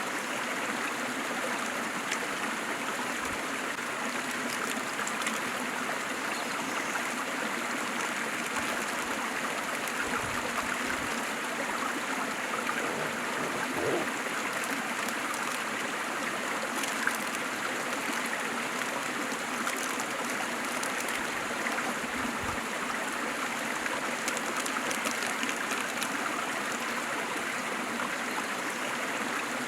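Waterfall and stream water rushing and splashing steadily, with faint gurgles and small splashes over the constant flow.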